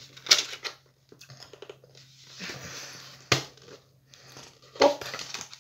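Hollow plastic toy egg being prised open by hand: three sharp plastic clicks and snaps, the loudest about midway, with soft rustling of the packaging between them.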